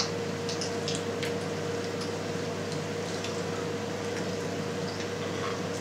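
A steady hum with a faint constant tone, with a few faint soft clicks and squishes from hands working a sausage casing as it fills from a stuffer.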